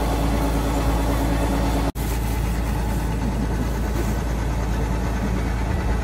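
An engine running steadily. The sound drops out for an instant about two seconds in, then the engine noise carries on.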